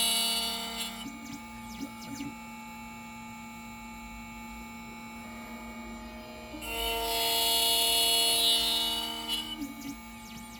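Electronic high-security key machine's cutter milling a 2014 Ford Focus key blade: a loud high-pitched whine for about the first second and again from about six and a half to nine and a half seconds in, with the machine running more quietly in between.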